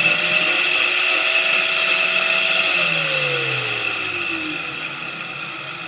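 Angle grinder clamped in a vise running free with no load, a steady whine; about three seconds in it is switched off and winds down, its pitch falling and the sound fading.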